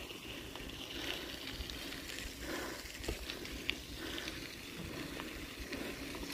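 Bicycle rolling over a rough road surface: faint tyre noise with scattered small ticks and rattles from the bike.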